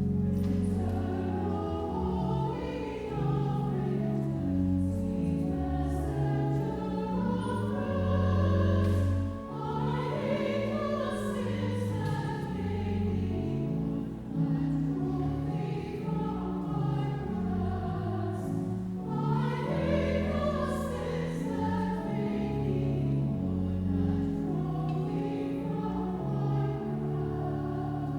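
Church choir singing an offertory anthem over held keyboard accompaniment.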